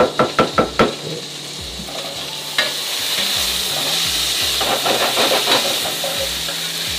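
Sliced sausage sizzling as it browns in a frying pan, stirred and scraped with a wooden spatula. A quick run of about five strokes comes in the first second, then the sizzle settles into a steady hiss that grows louder about two and a half seconds in.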